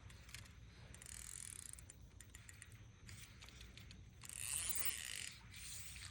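Fishing reel being cranked to retrieve a lure, its gears and ratchet making a whirring, clicking sound in several spells with short pauses between.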